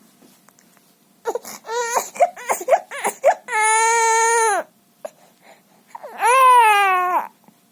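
A young child crying: a run of short whimpering cries, then two long, high wails, the second falling in pitch at its end.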